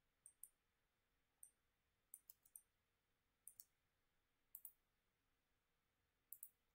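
Faint computer mouse button clicks, mostly in quick pairs, about a dozen spread through the few seconds, as edges are selected and a dimension is placed.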